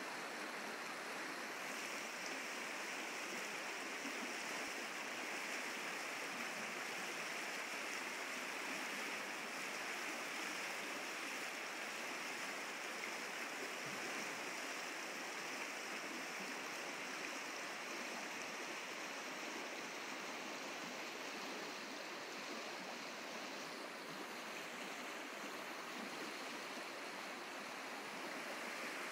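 Small brook flowing, a steady rush of running water.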